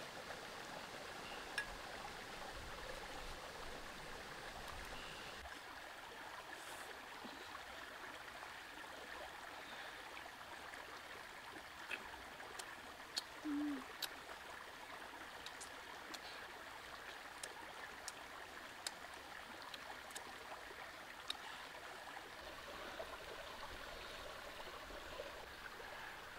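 Shallow stream running steadily over rocks, with scattered small sharp clicks and a brief low tone a little past halfway.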